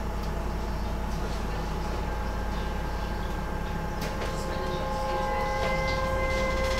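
Docklands Light Railway train's electric traction equipment humming and starting to whine as the train moves off from a station. Several steady tones come in about two seconds in and again near the end, and the sound grows slowly louder.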